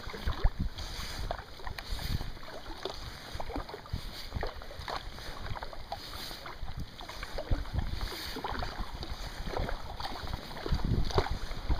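Kayak paddle strokes: irregular splashes and drips of water off the paddle blades. Wind buffets the microphone, stronger near the end.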